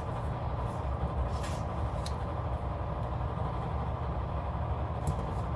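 Steady low background rumble, with a few faint short clicks and rustles of stickers and paper being handled at the planner.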